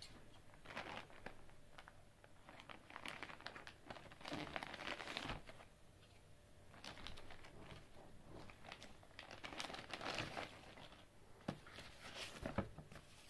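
Faint, irregular crinkling and rustling of a thin plastic courier mailer as it is handled, cut open with scissors and its box pulled out.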